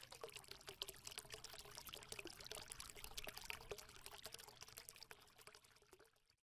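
Faint crackling trickle of pouring liquid, many tiny clicks over a soft hiss, swelling in over about the first second and fading away shortly before the end.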